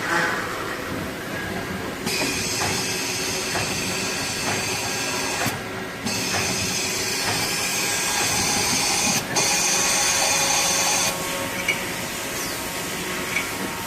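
Tsugami SS32 Swiss-type CNC lathe running a cycle, with a steady mechanical hum and hiss and scattered light knocks. A set of high whining tones starts about two seconds in, drops out briefly twice, and stops near the end.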